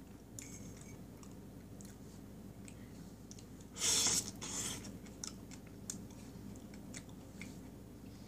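Close-up eating sounds of a person chewing spoonfuls of tiramisu cake with cream and kiwi: soft wet mouth clicks throughout, and a loud wet slurp as a spoonful goes into the mouth about four seconds in.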